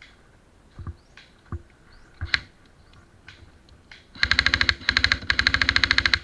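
Airsoft gun firing on full auto: two rapid bursts of about fifteen shots a second, the second the longer, after a few scattered knocks.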